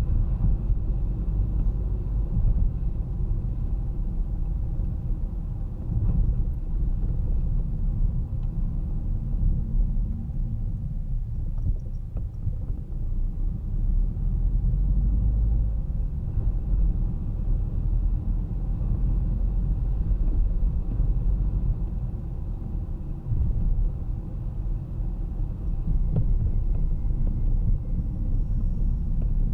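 Steady low rumble of a car driving on city streets: engine and tyre road noise, with faint traffic around it.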